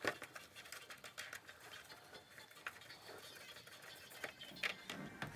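Faint scattered clicks and taps of gloved hands handling an ATV's plastic footrest and its loosened bolts. There is a sharper click at the start and another near the end.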